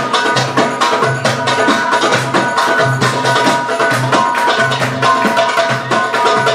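Belly dance music: Middle Eastern-style hand-drum percussion in quick, even strokes over a repeating bass line and held melodic tones.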